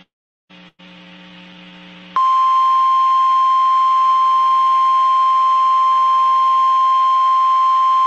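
A faint low buzz for about a second and a half, then, about two seconds in, the NOAA Weather Radio 1050 Hz warning alarm tone starts: one loud, steady, unwavering high tone. It announces the tornado warning about to be read.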